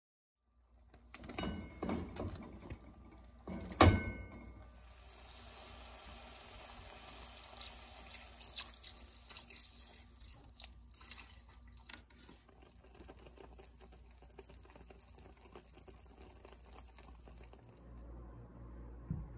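A few knocks and one sharp clack of kitchen utensils, then milk poured into a frying pan of cooking mushrooms with a steady hiss until about 12 seconds in. The hiss then drops to a quieter background, and there is a small knock near the end.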